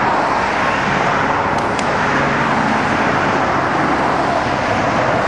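Steady road traffic noise from cars passing on a busy multi-lane road, with a brief high chirp about two seconds in.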